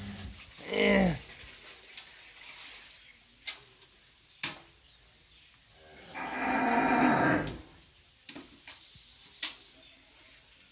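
Two loud animal calls: a short one falling in pitch about a second in, and a longer one of nearly two seconds at about six seconds, with a few sharp clicks between them.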